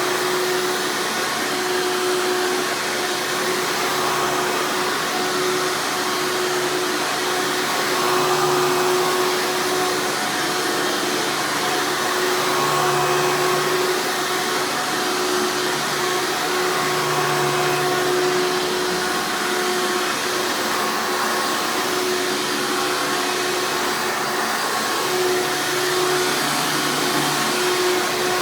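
1995 Hoover Encore Supreme U5059-930 upright vacuum running steadily: a constant motor whine over the rush of air.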